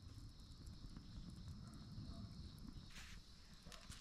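Quiet woodland ambience: a small wood fire crackling faintly, with a steady high hum and a low rumble underneath, and a brief rustle about three seconds in.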